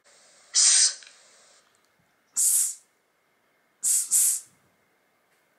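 A voice pronouncing the French consonant [s] on its own: three short hissing 'sss' sounds, the last one broken in two.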